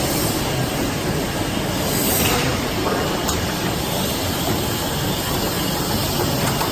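AEM-1080 automatic die cutting machine running, a loud, steady mechanical din, with a short hiss about two seconds in.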